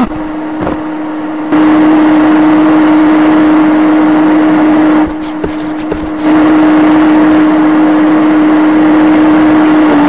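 Vacuum cleaner running: a steady motor hum with a rushing hiss over it. It jumps louder about a second and a half in, drops back for a moment around five seconds with a few light clicks, then is loud again.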